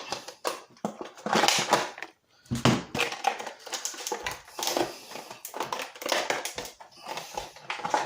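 Cardboard and plastic packaging being handled and pulled open: irregular crackling, scraping and clicking as a battery is taken out of its box.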